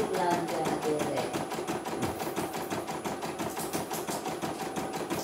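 Computerised embroidery machine stitching a design: a rapid, even clatter of the needle going up and down, about eight stitches a second. It is running smoothly, with the thread not breaking.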